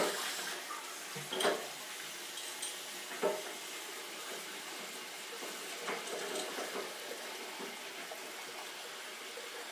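Water running steadily from a laundry tub faucet into the tub, with a few light knocks as the faucet handle is worked.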